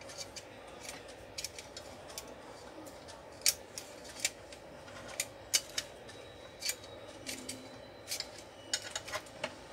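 Irregular sharp clicks and knocks of sheet-metal and plastic parts being handled as the carriage rail and print-head carriage of a Canon iP2770 inkjet printer are worked loose from its chassis.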